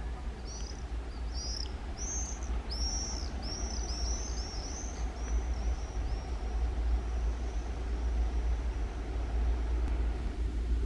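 Low, steady rumble of an approaching 2M62 diesel locomotive, its two-stroke V12 diesel engines running, slowly growing louder. A songbird sings a quick run of short chirps over it in the first half.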